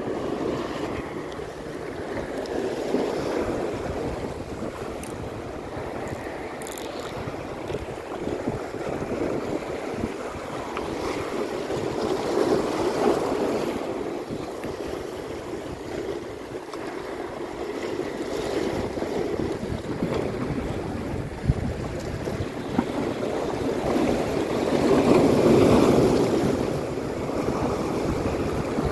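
Sea waves washing and splashing against breakwater rocks in slow, rising and falling surges, the loudest near the end, with wind buffeting the microphone.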